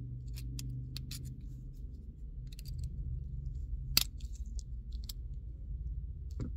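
Small metal screwdriver tip clicking and scraping against a plastic key fob housing and its CR2016 coin-cell battery while prying the battery out. There are many light ticks and a single sharper click about four seconds in as the battery comes free.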